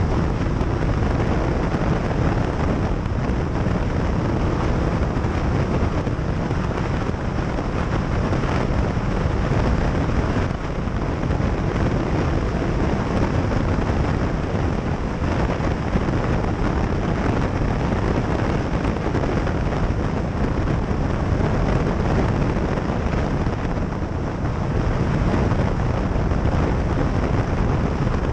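Motorcycle on the move, its engine running under a steady, heavy rush of wind buffeting the microphone.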